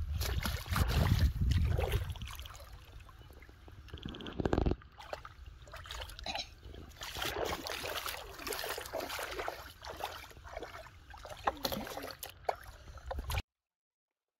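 Shallow pond water splashing and sloshing around a person wading through it, with a loud low rumble on the microphone in the first couple of seconds. The sound cuts off abruptly to silence near the end.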